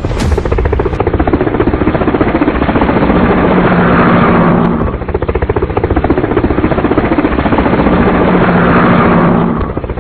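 Aircraft engine sound effect: a loud, rapid chopping drone that swells and falls back twice, like a repeated loop.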